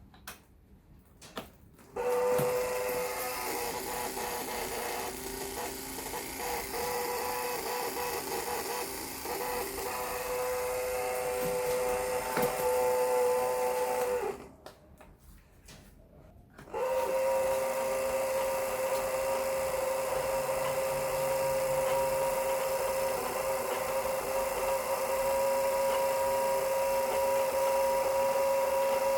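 A small electric motor running with a steady whine. It starts about two seconds in, stops for a couple of seconds around the middle, then starts again and runs steadily.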